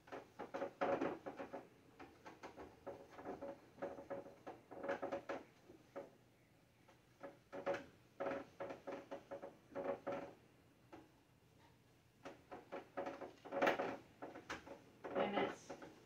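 Hands wiping and handling the plastic door shelves of a Kenmore refrigerator: irregular clusters of light knocks, clicks and rubbing, with short pauses about six and eleven seconds in.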